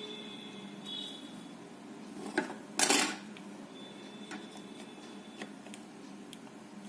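Small metal hand tools clinking on a workbench during circuit-board soldering work: scattered light ticks, with a louder clatter about three seconds in.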